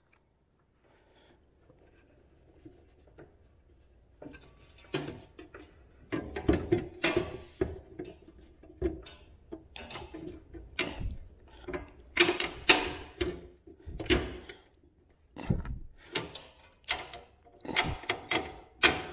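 Irregular metal clanks and rattles as a garage door opener's perforated steel hanger straps and mounting bolts are handled and fitted to the motor unit, starting about four seconds in.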